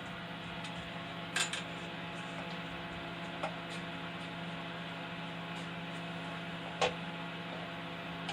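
Steady hum of idling shop machinery, made of several fixed tones, with three light clicks spread through it.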